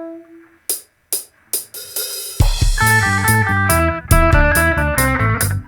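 Live reggae band starting a song: a few guitar notes and sparse hi-hat and cymbal strikes, then the full band comes in about two and a half seconds in with bass, drum kit and guitar chords.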